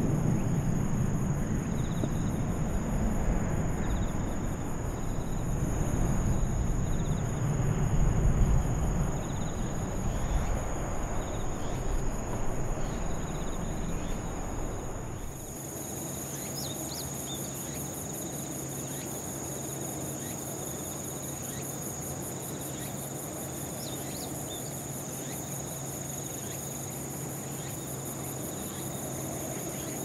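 Low, distant rumble of the Blue Impulse T-4 jet's twin turbofans, swelling to its loudest around eight seconds. About halfway through it gives way abruptly to a steady chorus of insects, with a high, even whine over a fast pulsing chirr.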